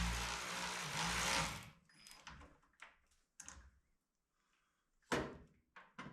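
A steady machine noise with a low hum cuts off about a second and a half in. Scattered light clicks and knocks follow, with one sharp knock about five seconds in.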